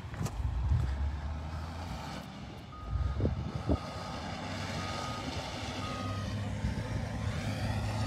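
Reversing alarm of a heavy work machine: short single-pitched beeps about once a second, starting about three seconds in, over a steady low engine rumble.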